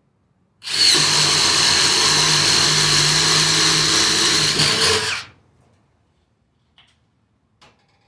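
Ridgid brushless impact driver boring a 1/2-inch self-feeding spade bit through a redwood 4x4 at its third speed setting. It is a steady, high-pitched run of about four and a half seconds that starts about a second in and cuts off abruptly. A few faint knocks follow near the end.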